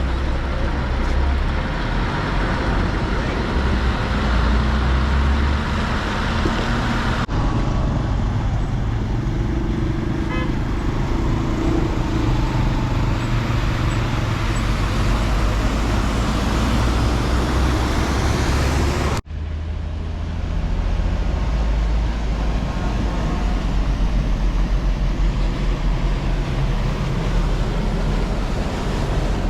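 Highway traffic: heavy vehicle engines such as buses running with a steady low rumble and road noise, and horns tooting. The sound changes abruptly twice, about 7 and 19 seconds in.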